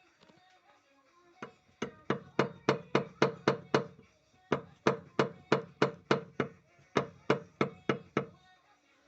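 Steady knocking, about three sharp knocks a second, in two runs with a brief pause between them.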